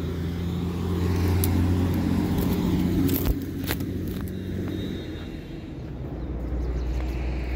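A motor vehicle's engine running steadily, a low hum whose pitch drops about five seconds in, with a few light clicks over it.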